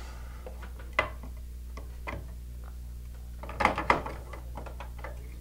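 Small clicks and knocks of a circuit board and plastic standoffs being pushed and fitted into a metal alarm-panel cabinet. There is one sharp click about a second in and a cluster of knocks and rattles between three and a half and four seconds in, over a steady low electrical hum.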